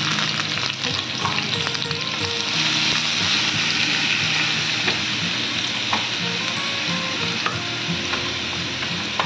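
Grated onion sizzling steadily in hot oil in a nonstick pan, stirred with a slotted spatula that scrapes and clicks against the pan now and then.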